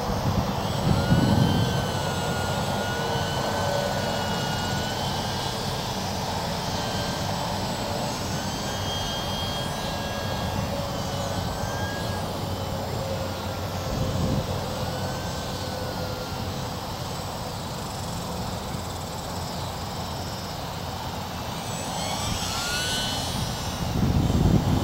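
Electric motor and propeller of an E-flite UMX Yak 54 micro RC plane in flight: a thin whine that rises and falls in pitch with the throttle. Bursts of low rumble come about a second in, around the middle, and near the end.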